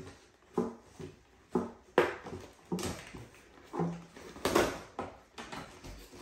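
Plastic doll packaging and its cardboard insert crinkling and tearing as they are pulled apart, in short sharp bursts about once a second.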